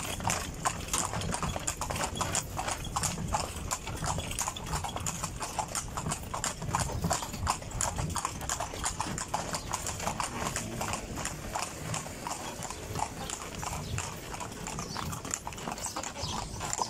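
Steady clip-clop of a pair of carriage horses' hooves on an asphalt street as they pull a horse-drawn carriage, a quick, even run of hoof strikes throughout.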